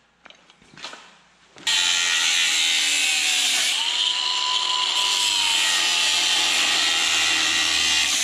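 Handheld angle grinder starting up with a sudden onset about two seconds in and cutting into the steel exhaust pipe of a Smart fortwo CDI muffler, a loud steady whine whose pitch sags briefly as the disc bites into the metal, after a few soft handling clicks.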